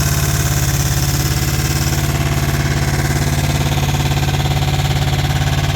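Briggs & Stratton Intek V-twin mower engine running steadily, with an even low pulse, on its first test run after an oil pan gasket repair.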